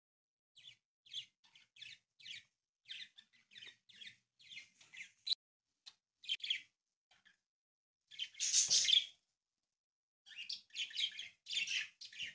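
Origami paper being folded and creased by hand: a run of short, dry rustling strokes as fingers press and slide along the folds, with one longer, louder crinkle about eight seconds in.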